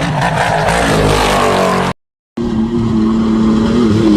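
Off-road vehicle engine revving, rising in pitch, with a rough rushing noise over it; it cuts off abruptly about two seconds in. After a brief silence, an engine runs at a steady pitch.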